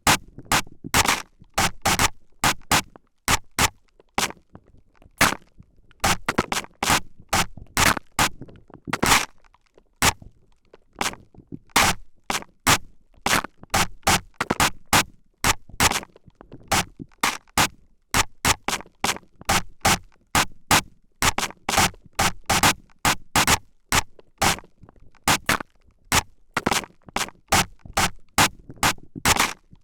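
Spray bottle spritzing over and over right at the microphone, short sharp hissing squirts about two to three a second in quick runs with brief pauses.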